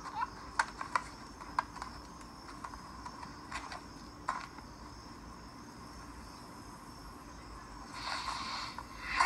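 Faint steady chirring of crickets in a film's outdoor soundtrack, heard through a television's speakers, with scattered light clicks and a short hiss about eight seconds in.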